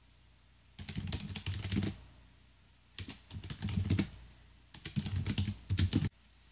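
Typing on a computer keyboard: three short bursts of key clicks, each lasting about a second.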